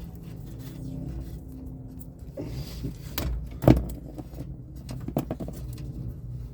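Handling noises while working on wiring: scattered clicks and knocks, one louder knock a little past halfway, over a steady low hum.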